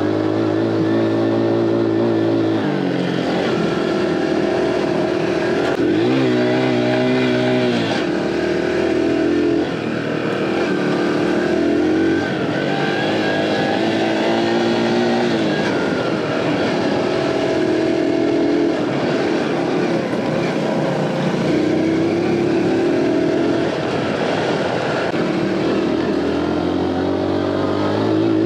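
Aveta Ranger Cub Cross 115's 115cc single-cylinder engine under way, its pitch rising and dropping every few seconds as the throttle is opened and eased off.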